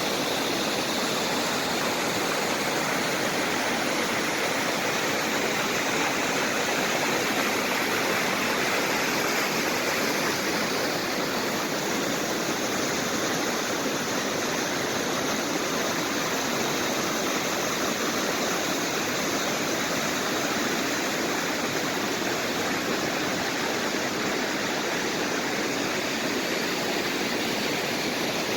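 Rushing water of a valley stream, flowing steadily.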